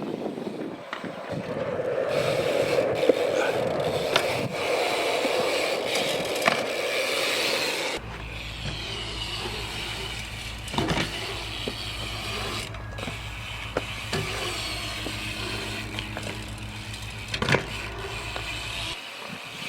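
BMX bike riding on skatepark concrete: tyres rolling and scraping, with several sharp knocks. A steady low hum runs under the second half.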